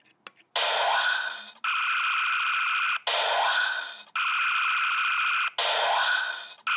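Synthesized electronic sound effect played from a model kit's sound module. It repeats three times: a hissing burst that fades, then a steady electronic tone that cuts off abruptly. A few faint clicks come just before the first burst.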